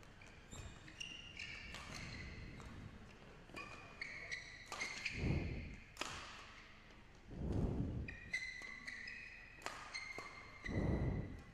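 Badminton rally on an indoor court: sharp racket strikes on the shuttlecock and short high-pitched squeaks of shoes on the court mat as players lunge and turn, with three louder muffled swells spread through it.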